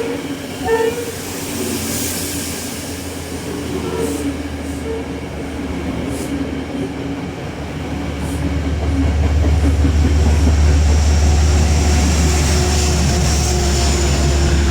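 Metro-North Shoreliner commuter train running through, with a low rumble that grows much louder from about eight seconds in and then holds. A few short pitched squeals come near the start.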